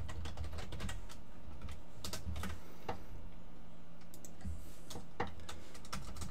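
Computer keyboard being typed on in short, irregular runs of key clicks, over a low steady hum.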